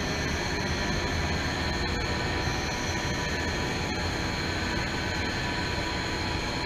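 Clausing Colchester Mascot 18 x 60 gap-bed lathe running with no cut, its geared headstock turning the chuck: a steady mechanical whir with several steady high whining tones over it.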